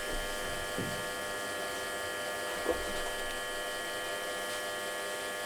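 Milling-head motor of an Optimum TU3008G running at its minimum speed with a steady electric whine, turning a spiral tap into the first hole; at this speed the motor has very little torque.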